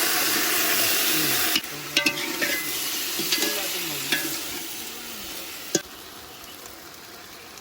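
Rushing water of a waterfall, a loud steady hiss. About a second and a half in it cuts off suddenly to a much quieter stretch with a few sharp clicks and faint low sounds that slide in pitch.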